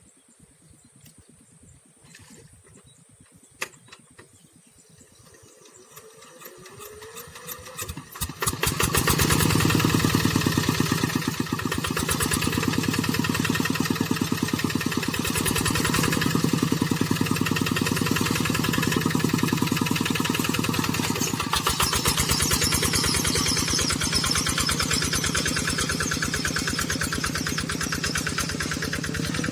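Tractor diesel engine starting: a few faint clicks, then a rising build-up that catches about eight seconds in, after which the engine runs steadily with an even rapid beat.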